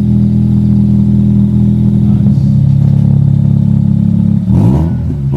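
Mazda RX8's twin-rotor rotary engine idling steadily through a decatted, straight-through single exhaust box, then revved briefly near the end, the pitch rising and falling.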